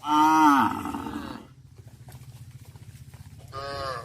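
Cow mooing: a loud call that falls in pitch over about a second and a half, then a second, shorter moo near the end.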